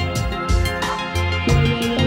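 Background music with a steady drum beat over sustained instrument tones.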